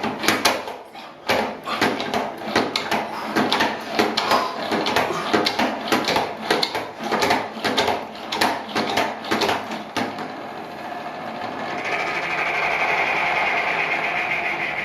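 Salad spinner being worked by hand: about ten seconds of rapid clicking and rattling, then a smooth steady whir as the basket spins freely.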